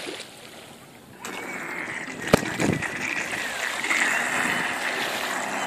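Radio-controlled offshore racing boat running on the water: a thin, high motor whine that wavers as the boat turns, over the hiss of its wake, starting about a second in. A single sharp click comes a little over two seconds in.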